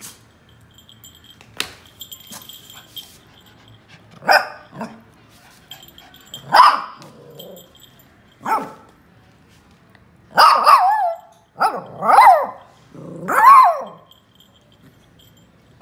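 Lhasa Apso puppy barking while playing: about six high barks a second or two apart, the later ones longer and louder.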